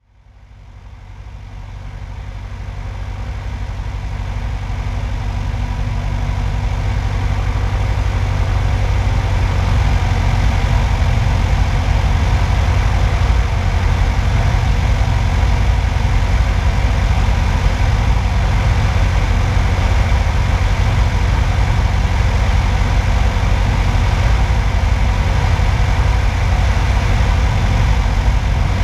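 Single-engine light airplane's engine and propeller running steadily on approach, heard from outside the cabin with rushing airflow over it. The sound rises from silence over the first several seconds and then holds steady.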